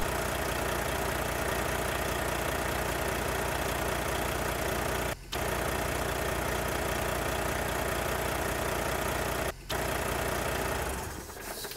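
An engine idling steadily. It cuts out for a moment twice, about five and nine and a half seconds in, and fades away near the end.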